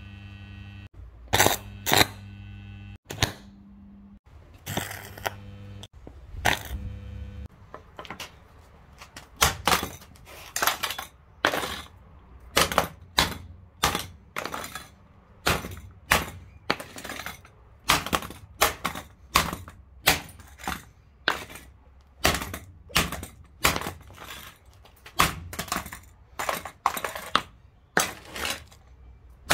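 Overloaded XU1 jigsaw, smoking, giving a steady low electric hum with a few sharp clicks for the first several seconds. Then, from about eight seconds in, a golf iron repeatedly smashes the jigsaw on paving slabs: a long run of hard cracking blows, a little over one a second, its plastic body breaking apart.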